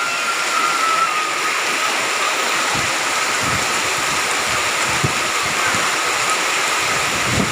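Heavy rain pouring down steadily, with rushing floodwater and a few low thumps.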